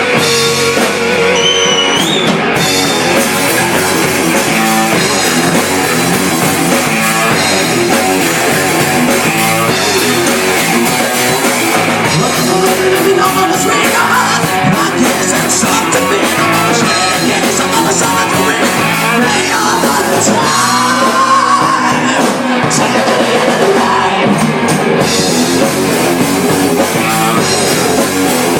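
Live rock band playing an instrumental stretch: electric guitar over drum kit and bass, with a few sliding, bent notes.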